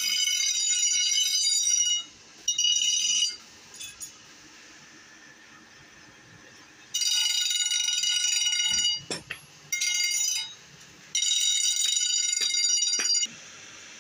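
Grinding wheel screeching at a high pitch as the steel tip of a forged tyre lever is pressed against it, in five passes of up to about two seconds with quieter gaps between and a few sharp ticks.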